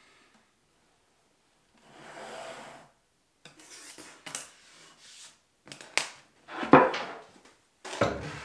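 Woodworking handling sounds: a pencil scratching along a rule across a plywood panel, small clicks and taps, then wooden knocks as the plywood panel is handled and laid on a drill press table. The loudest knock comes a little over halfway through.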